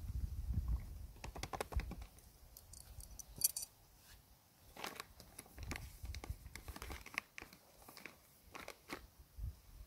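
Foil-lined Real Turmat freeze-dried meal pouch being torn and pulled open by hand: a run of crinkles and crackles, with one short, sharp crackle about three and a half seconds in.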